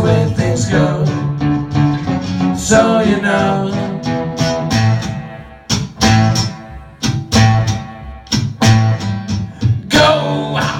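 Acoustic guitar strummed, with a voice singing over it in the first few seconds. From about halfway, a run of sharp, separate chord strums, each ringing briefly.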